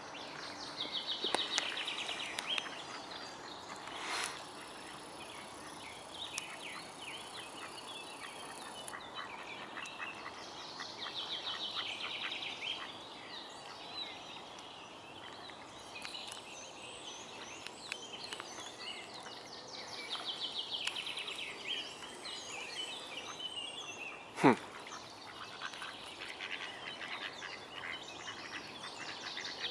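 A wild songbird singing a short high trilled phrase, repeated about every nine seconds, over a steady outdoor hiss with small scattered clicks. About two thirds in, one short loud sound falls sharply in pitch.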